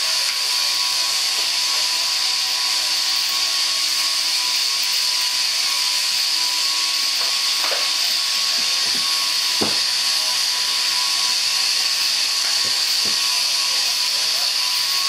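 Sheep-shearing handpieces running at several stands at once, a steady high whirring hiss with a faint constant hum beneath it.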